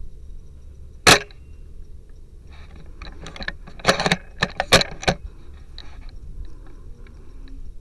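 Tokyo Marui VSR-10 spring-powered bolt-action airsoft sniper rifle firing once with a sharp snap about a second in. A couple of seconds later comes a quick cluster of metallic clicks and rattles as the bolt is worked to cock the spring for the next shot.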